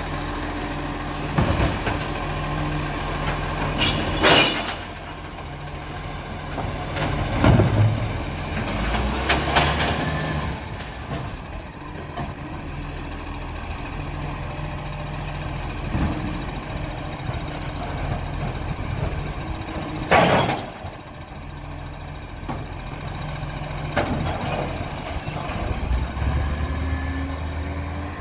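Side-loader garbage truck's diesel engine running as the truck pulls away from the kerbside bins. Several short, sharp air-brake hisses cut through it, the loudest about four, seven and twenty seconds in.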